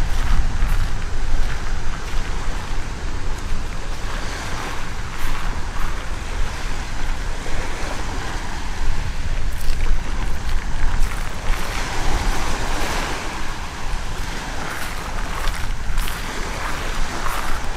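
Black Sea surf washing up the beach, swelling every few seconds, with wind rumbling on the microphone.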